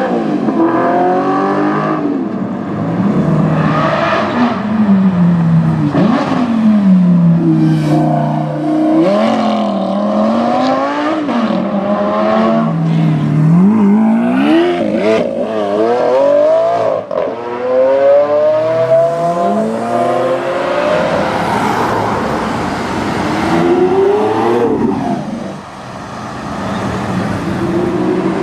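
Supercar engines revving and accelerating hard, the engine note climbing and falling again and again, with sharp cracks among the revs.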